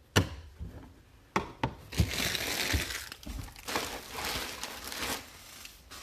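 Trading-card pack wrappers being torn open and crumpled: a few sharp taps in the first two seconds, then two spells of crinkling.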